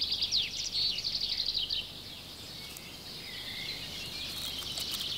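Woodland birdsong: many small birds chirping and calling together, busiest in the first couple of seconds, then thinner over a steady high background.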